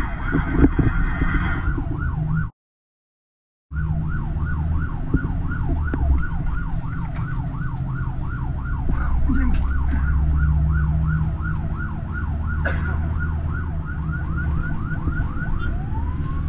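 Fire engine's siren on a fast yelp, its pitch sweeping up and down about three times a second, heard from inside the cab over the truck's diesel engine running under way. The sound cuts out completely for about a second early on.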